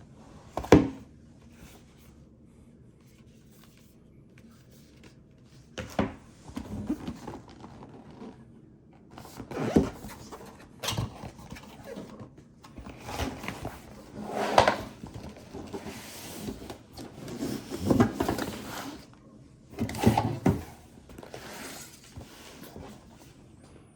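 Packaging being handled and opened: a sharp knock about a second in, then irregular thuds, rubbing and scraping of box parts.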